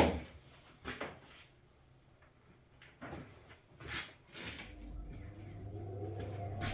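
Several separate knocks and clunks of wooden cabinet parts being handled and set down, then a steady hum that starts about two-thirds of the way in and grows louder.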